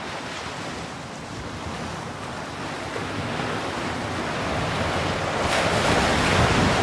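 Sea surf and wind: an even rushing wash of noise that swells steadily louder, fullest near the end.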